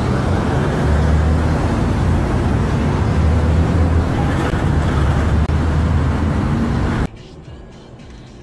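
Loud, steady roar of road traffic with a heavy low rumble. It cuts off abruptly about seven seconds in, leaving a much quieter road hum.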